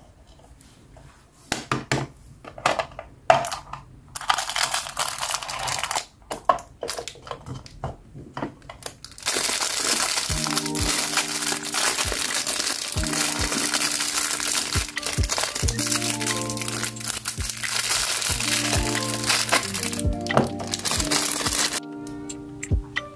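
A plastic toy capsule clicks and rattles as it is handled and opened, then a thin plastic wrapper crinkles steadily for over ten seconds as a small figure is unwrapped. Light background music plays under the crinkling from about ten seconds in.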